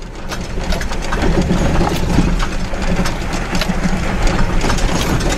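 Jeep engine running at low speed, heard from inside the cab, with frequent short rattles and knocks as the vehicle jolts over sand and rock.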